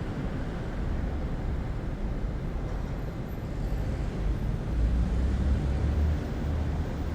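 City ambience: a steady low rumble of distant traffic, swelling a little louder about two thirds of the way through.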